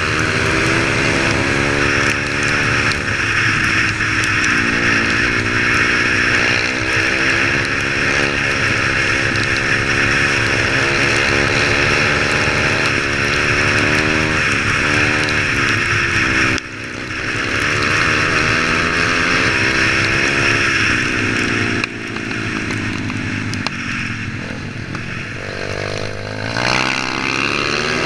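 Single-cylinder four-stroke pit bike engine heard on board while riding, revving up and down through the gears. It drops off briefly twice partway through, then revs climb again near the end.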